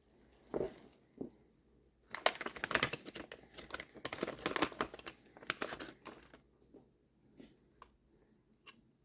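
Packaging being handled and crinkled: a thump, then several seconds of dense crackly rustling, then a few light clicks as it settles.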